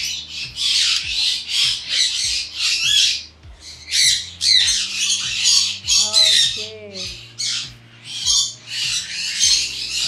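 Sun conure screeching: loud, harsh squawks repeated about twice a second, one after another.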